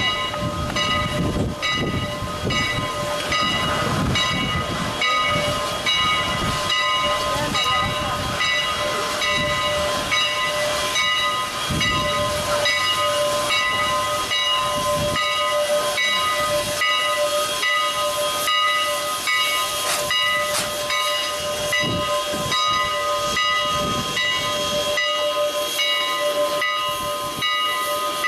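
Canadian National 89, a 2-6-0 Mogul steam locomotive, working steadily: even hissing exhaust chuffs about two a second, with a steady high whine running underneath. Wind rumbles on the microphone in the first half.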